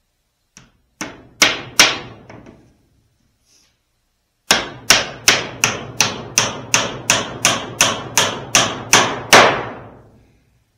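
Hammer striking oak woodwork: a few blows, then after a pause a steady run of about fourteen blows at roughly three a second, the last one the loudest.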